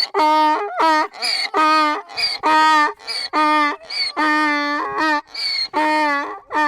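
An animal calling over and over: about nine short cries of steady, even pitch, one after another, roughly one every 0.7 seconds.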